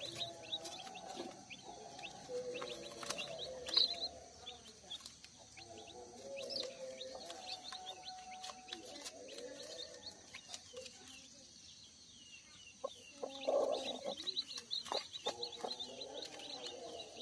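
Broody hen clucking softly over her newly hatched chicks, with the chicks peeping high and thin. The hen gives a louder run of calls about thirteen seconds in.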